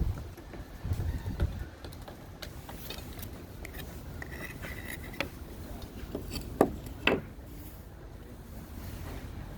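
Tools being handled: scattered light clicks and rattles, then two sharp clanks about a second apart near the seven-second mark.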